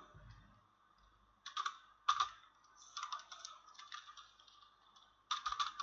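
Computer keyboard typing in a few short bursts of keystrokes with pauses between them, the quickest run coming near the end.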